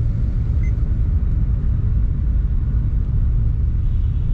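Car driving on a city street, heard from inside the cabin: a steady low rumble of engine and road noise.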